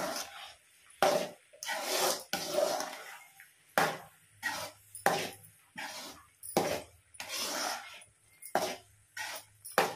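Metal spoon scraping and knocking around a metal kadai as a thick, mushy rusk halva is stirred: a dozen or so separate scrapes at an uneven pace.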